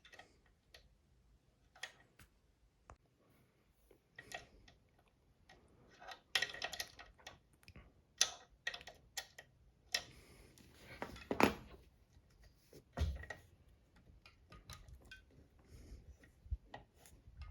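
Irregular small clicks and knocks from hand work on an electric scooter's folding stem clamp as its adjusting screw is turned bit by bit, with a duller thump about thirteen seconds in.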